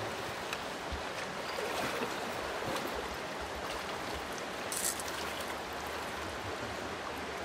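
Shallow river rushing steadily over rocks and riffles, with one brief sharp hiss about five seconds in.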